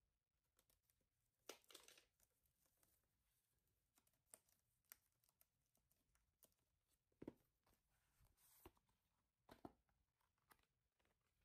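Faint crinkling and tearing of plastic shrink wrap being peeled off an album, in short scattered rustles, with a couple of soft knocks as the album is handled.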